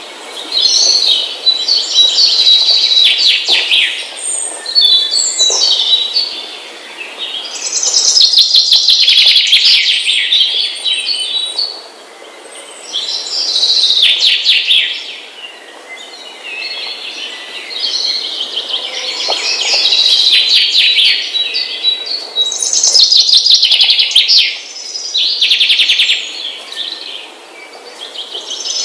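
Small birds chirping and twittering in fast, high-pitched trills, in loud bouts a few seconds long with quieter spells between.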